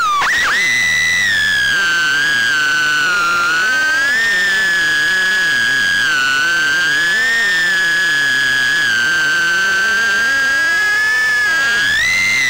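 Mobula 6 HD tiny whoop drone's four brushless motors and small propellers whining in flight. The high whine wavers up and down with throttle, then climbs sharply near the end.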